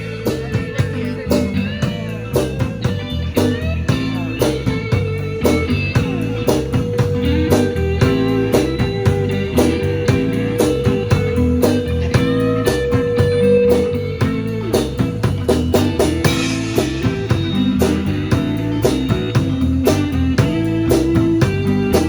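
A live rock band plays an instrumental passage, with guitar over a drum kit and bass on a steady beat. A single guitar note is held for several seconds in the middle.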